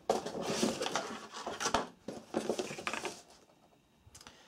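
A cardboard box and a clear plastic tray insert being handled as a vinyl figure is pulled out of its packaging: irregular rustling, scraping and small clicks that stop about three seconds in.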